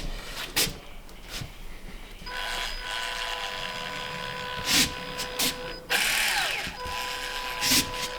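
Power drill running steadily from about two seconds in, its motor whining at a constant pitch, with a rougher, grittier stretch around six seconds as it works. A few light knocks come before it starts.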